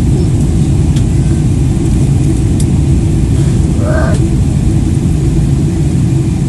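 Airliner cabin noise in flight: a loud, steady low rumble of engines and rushing air.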